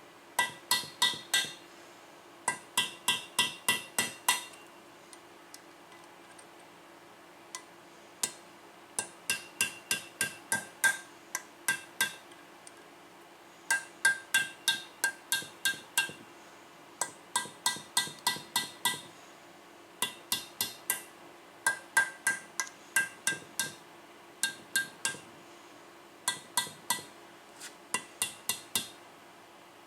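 Metal-on-metal tapping on the edge of a broken-off exhaust manifold bolt, in quick runs of about five ringing taps a second with short pauses between runs, working the bolt stub loose to unscrew it without drilling.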